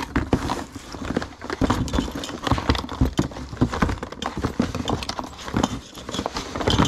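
Hand tools and other small objects clattering and knocking together as a gloved hand rummages through a cardboard box: an irregular run of clicks and clunks.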